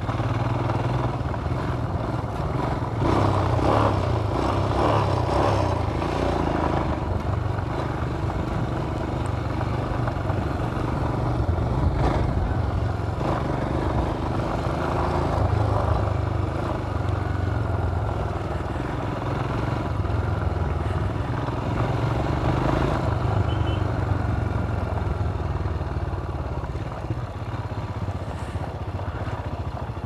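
Royal Enfield Himalayan's single-cylinder engine running steadily as the motorcycle rides over a dirt track, with road noise and clatter from the rough surface and a single sharp knock about twelve seconds in.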